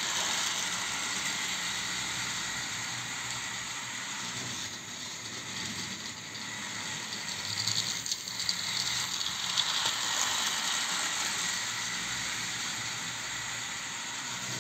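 HO scale model train running on the layout's track: a steady whirring hiss from the wheels and motor rolling over the rails.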